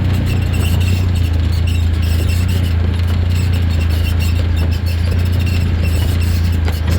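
Can-Am off-road vehicle's engine running steadily at a low drone while riding, with intermittent high-pitched squeaks over it.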